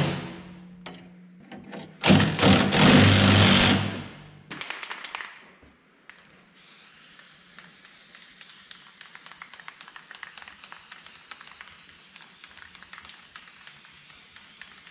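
Cordless impact driver hammering a bolt down, a short burst at the start and a longer one of about two and a half seconds. After that, a faint steady hiss of an aerosol can spraying paint.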